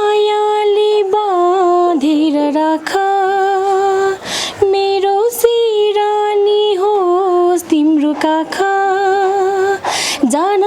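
A woman singing a Nepali song in long, held notes, with two short breaks for breath, about four seconds in and near the end.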